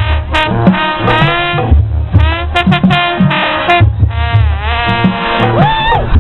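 Band music led by brass horns over drums, in a swing or jazz feel. Near the end one horn slides up in pitch, holds and falls back.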